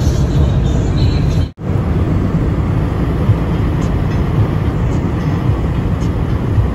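Steady road noise inside a moving car, tyres running on a wet highway under the engine's drone. The sound drops out for a moment about one and a half seconds in, then carries on the same.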